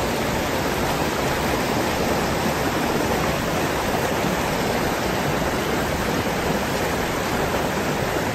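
Fast mountain stream rushing over boulders and small cascades close by, a steady, even rush of water with no change.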